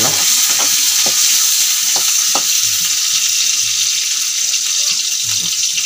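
Chopped onions sizzling in hot oil in a metal wok, with a steady frying hiss. A ladle stirs them, making a few light scrapes.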